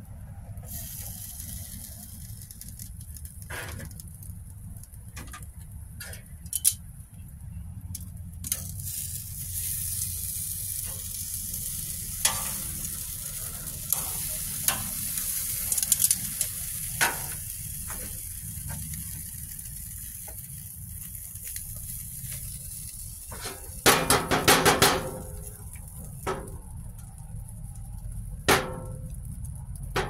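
Hot dogs sizzling on a gas grill's grates as barbecue sauce is brushed onto them, a steady high hiss over a low rumble. Scattered sharp clicks, with a loud burst of clattering near the end.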